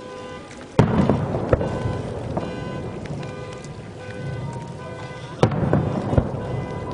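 Fireworks bursting: two loud bangs, one about a second in and one near the end, each followed by smaller pops and a low rumble, over music.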